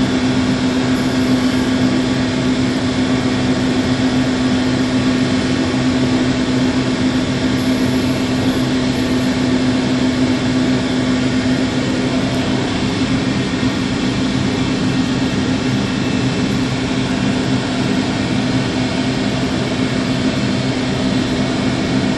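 Paint spray booth's ventilation running steadily: an even rush of moving air with a steady low hum underneath.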